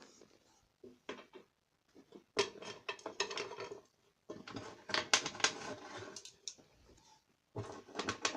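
Metal hand tools, screwdrivers and the like, clinking and clattering against each other as they are rummaged through and lifted out of an old tool box, in irregular bursts with short pauses.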